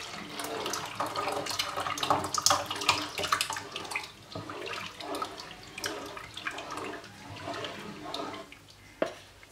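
Thick cornmeal slurry pouring from a plastic measuring jug into a pot of boiling water, splashing and bubbling as a wooden spoon stirs it in; the pour thins out near the end.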